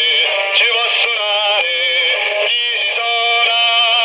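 A song with sung vocals played over a CB radio channel, sounding thin and narrow as radio audio does.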